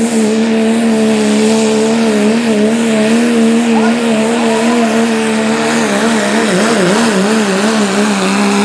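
Dodge Ram Pro Stock Diesel pulling truck's diesel engine held at high revs under full load as it drags the weight sled, a steady high engine note over a hiss of exhaust and tyres. The pitch wavers and dips about six to seven seconds in, then steadies.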